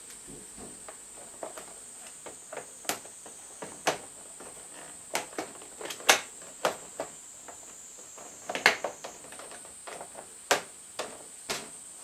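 Irregular sharp plastic clicks and knocks, about twenty, as the white plastic front grille of a Panasonic FY-20WA22 window exhaust fan is fitted and snapped onto the fan housing. A faint steady high-pitched whine runs underneath.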